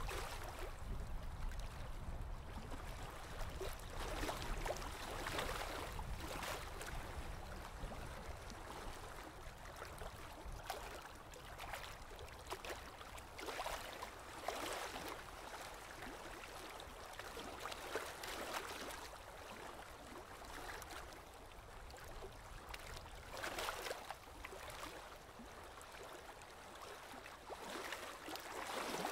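Water moving in a goldfish aquarium: a steady wash with louder swells every few seconds.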